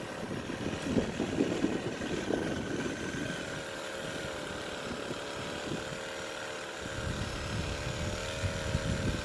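An engine running steadily at an even speed, with gusts of wind on the microphone in the first few seconds.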